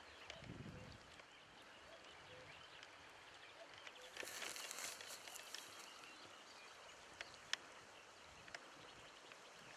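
Faint rural outdoor ambience, near silence, with a soft low thump just after the start, a brief rustle about four seconds in, and a couple of sharp clicks near the end.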